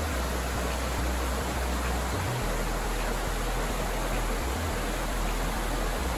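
Rocky mountain creek rushing over stones and small cascades: a steady, even rush of water.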